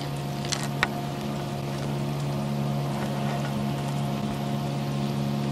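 A steady low motor hum, with a few small clicks about half a second to a second in.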